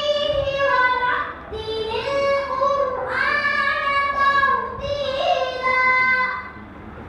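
A girl's voice reciting the Quran in the melodic chanted style, holding long ornamented notes in several phrases with short breaths between them. The last phrase ends about six and a half seconds in.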